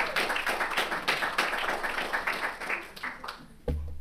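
Audience applause, a dense patter of hand claps that thins out near the end.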